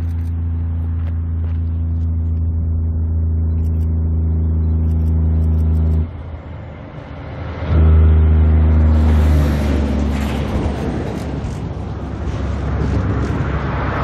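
Kenworth C509 road truck hauling an oversize CAT D11 bulldozer load: a loud, low, steady drone at one pitch cuts off abruptly about six seconds in. It comes back louder about two seconds later, then gives way to the rushing noise of the truck and its low-loader trailer going by.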